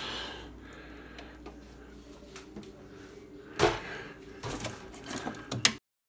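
Frost-free refrigerator's freezer compartment opened and handled: a short hiss at the start, a sharp knock about three and a half seconds in, then a few lighter clacks and rattles of things being moved inside, over a faint steady hum. The sound cuts off suddenly just before the end.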